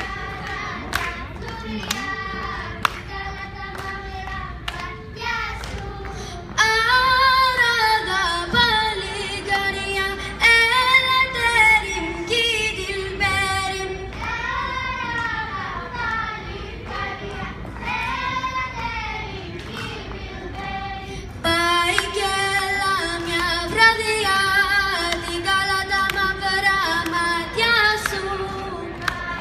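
A girl singing a Thracian Greek folk song a cappella into a microphone, her voice carried over a PA, growing louder about six seconds in. Sharp taps keep a steady beat during the first few seconds.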